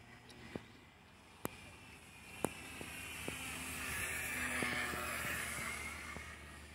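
Electric motor and propeller of an FMS Super EZ RC trainer plane flying past overhead: the buzz swells, peaks about four to five seconds in, then fades. A few sharp clicks come in the first two and a half seconds.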